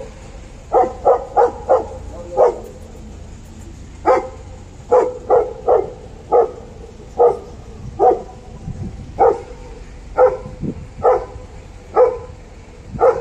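Dog barking repeatedly: short single barks and quick runs of three or four, about eighteen in all.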